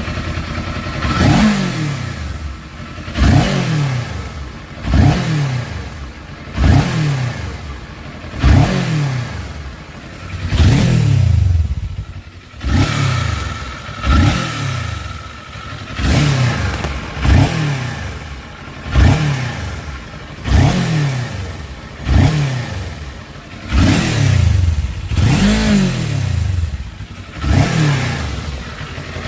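Vehicle engine revved in short blips every one and a half to two seconds, the pitch jumping up and falling back each time, with a rattling noise that the owner finds weird.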